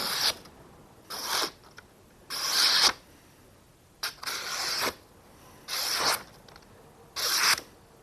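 A knife blade slicing through paper in repeated strokes, each a short hissing rasp of about half a second. There are about six strokes, roughly a second and a half apart. The blade is a Brisa Trooper 115 with a scandi grind, and it cuts cleanly.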